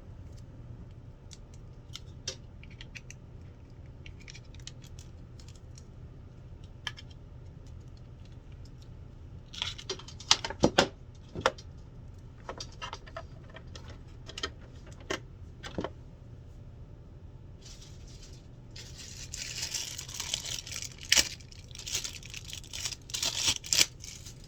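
Hands unpacking a boxed cutting machine and its packaging: scattered clicks and knocks, a burst of sharper knocks about ten seconds in, then packaging rustling with sharp clicks through the last several seconds.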